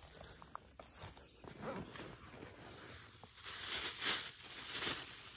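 Insects shrilling steadily at one high pitch, with a few louder rustles about four to five seconds in.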